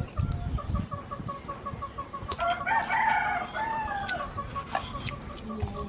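A rooster crows once, about two and a half seconds in, rising and then falling. Under it runs a steady series of short, evenly repeated calls, about five a second, with a few low thumps near the start.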